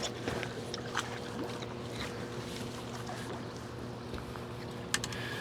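Boat motor running steadily with an even hum, with a few light clicks and knocks over it.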